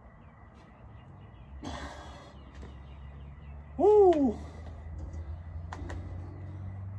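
A man's sharp breathy exhale, then about four seconds in a short, loud 'hoo' from him that rises and falls in pitch, the sound of effort as he comes down from a front-lever hold on a pull-up bar.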